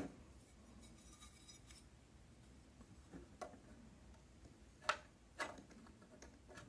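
Mostly quiet room tone with a few faint, scattered clicks and taps of a metal bracket being handled against a soldering iron holder; the sharpest click comes about three quarters of the way through, with a smaller one just after.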